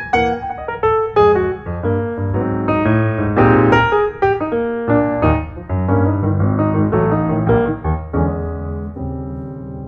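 Background piano music: a run of quick notes over chords, settling into held chords and fading near the end.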